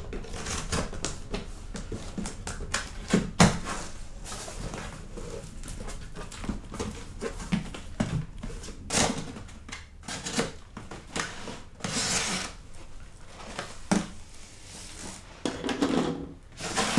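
A cardboard box and its packaging being handled and opened: scattered knocks and clicks, with several short bursts of rustling and scraping.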